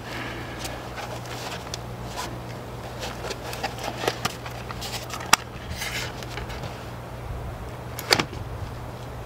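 Hands working at an outdoor hose spigot: rustling and scattered clicks as the faucet is wrapped and a red faucet cover is fitted over it. The sharpest click comes about five seconds in and another near the end, over a steady low hum.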